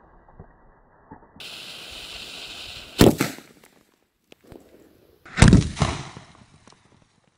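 Two loud firecracker blasts about two and a half seconds apart, from a powerful firecracker set off inside a boot. A steady hiss runs for about a second and a half before the first blast, and a few smaller crackles and pops follow the second.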